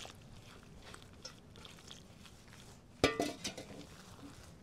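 Damp nixtamalized corn flour being squeezed and mixed by hand in a clay bowl, faint crumbly squishing. About three seconds in, a sudden clank with a brief ring, as the aluminium pot is set down on the stone counter, followed by a few lighter knocks.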